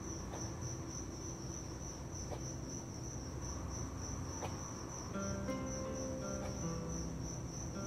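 Crickets chirping in a steady, evenly pulsing high trill. Background music of held notes comes in about five seconds in.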